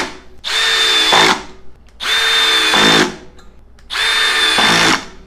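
Metabo HPT subcompact cordless drill driving long screws into a wooden beam, three in a row, each run about a second long with a steady high motor whine. Each run ends with a short change in sound as the mechanical clutch slips and stops the screw.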